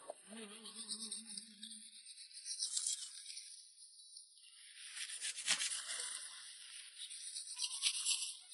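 Repeated rustling and scraping of plants and dry leaves being handled and pushed through while wild greens are picked, with a faint snatch of background song in the first two seconds.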